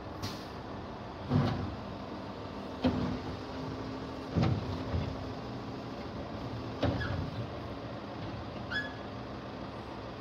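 International garbage truck with a Labrie Automizer Helping Hand arm: its diesel engine running steadily, with four loud bangs about one and a half to two and a half seconds apart as the automated arm dumps a cart into the hopper.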